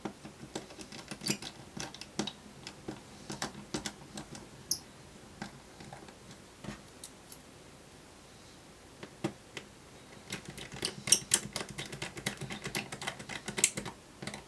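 Irregular light clicks and taps of a laptop's metal display hinge and screws being handled and fitted onto the chassis. The clicks thin out in the middle and come thick again near the end, where a small Phillips screwdriver is working a hinge screw.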